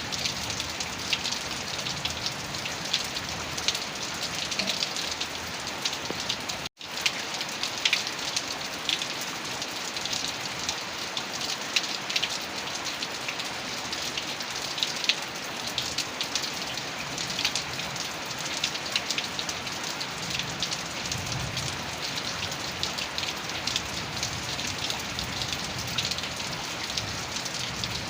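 Heavy rain falling steadily, with many sharp individual drop hits. The sound cuts out for an instant about a quarter of the way in.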